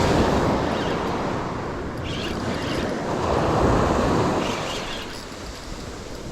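Surf waves washing onto a sandy beach, two swells of rushing noise, the second a few seconds in, with wind buffeting the microphone.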